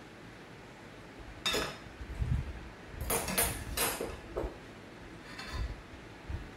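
Metal ladle and utensils clinking against a stainless-steel pot of chicken soup and the bowls: one sharp clink about a second and a half in, a quick cluster of clinks around three to four seconds in, then a few fainter ones, with some soft knocks.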